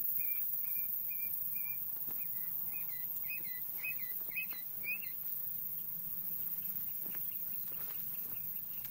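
Quail calling: a run of short, high chirps about two to three a second, the later ones rising at the end, stopping about five seconds in.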